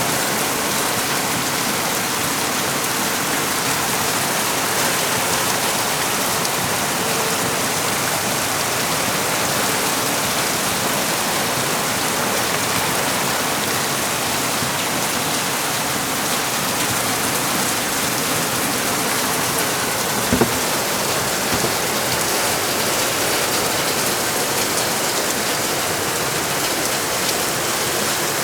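Heavy rain falling steadily in a dense, even hiss. A brief sharp knock comes about twenty seconds in.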